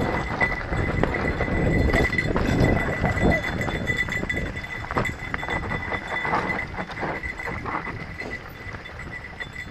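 Mountain bike riding fast down a rough dirt singletrack: a steady rumble of tyres and rushing air, broken by irregular knocks and rattles of the bike over bumps and roots.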